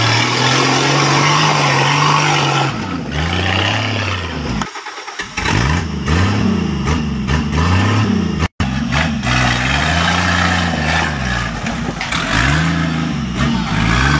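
Jeep engine revving up and easing off again and again as the four-wheel-drive labours through deep mud, its pitch rising and falling in repeated swells. The sound dips briefly about five seconds in and cuts out for an instant past the middle.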